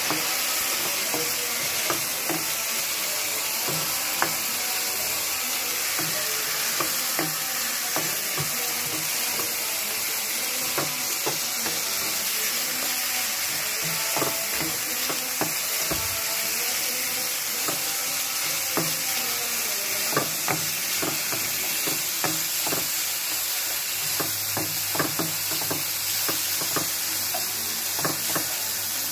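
Minced fish keema sizzling in hot oil and masala in a nonstick wok, with a steady hiss, while a spatula scrapes and knocks against the pan over and over as it is stirred.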